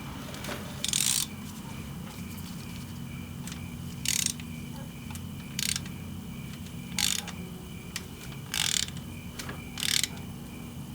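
Ratchet wrench clicking in six short runs, about one every second and a half, as the Yamaha R6's engine is turned over by hand to line up the cam timing marks. A steady low hum lies underneath.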